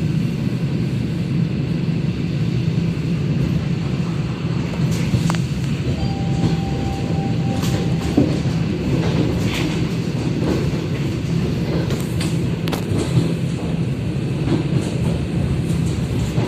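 ED4M electric train running along the track, with a steady low rumble of the wheels on the rails and scattered short clicks. A thin steady tone sounds for about two seconds near the middle.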